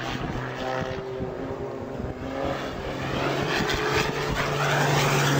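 Aircraft engine noise: a steady low hum under a rough rushing noise that grows louder toward the end.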